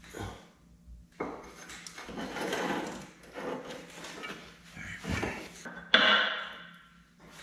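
Steel parts of an excavator's dozer-blade mount clanking and scraping as they are handled and worked into place, a few separate knocks with the loudest about six seconds in, ringing briefly.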